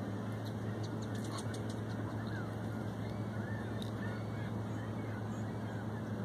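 Outdoor background with a steady low hum and a few faint, short bird calls a couple of seconds in. Light clicks come from a treble hook and split ring being worked by hand.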